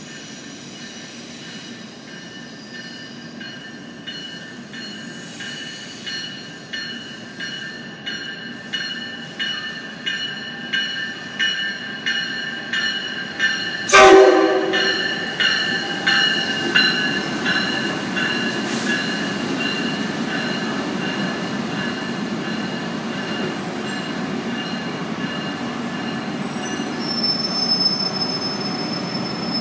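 Metra Electric Highliner electric multiple-unit train arriving at the platform: a bell rings a little more than once a second, growing louder as the train approaches. About halfway through comes a short horn blast, the loudest moment, then the rumble of the cars rolling in and slowing, with faint high brake squeal near the end.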